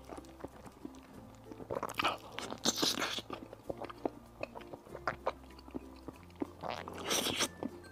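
Close-miked eating: a mouthful of cheese-coated spicy fire noodles being slurped in, with slurps about 2 and 3 seconds in and again near the end, between soft wet chewing clicks.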